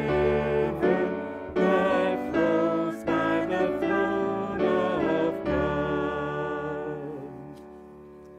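Singing with piano accompaniment at the close of a hymn: a few sung phrases with vibrato, then a final held note and chord from about two-thirds of the way in, fading out near the end.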